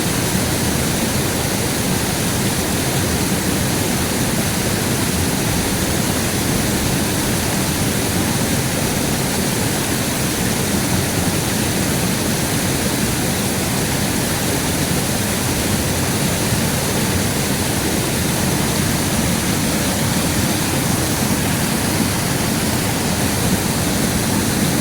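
River water rushing steadily, an even loud hiss with no breaks.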